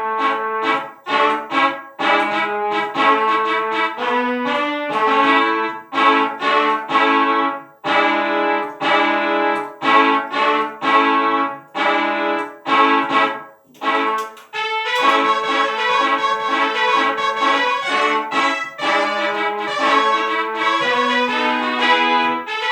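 Instrumental background music with a brass-like melody played in quick, separate notes; the arrangement fills out with a fuller, brighter accompaniment about two-thirds of the way through.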